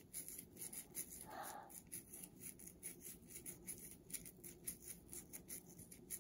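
A triple-tip dreadlock crochet needle stabbed rapidly in and out of a lock of human hair. It gives faint, scratchy rasping strokes several times a second as the hair is interlocked into a dreadlock.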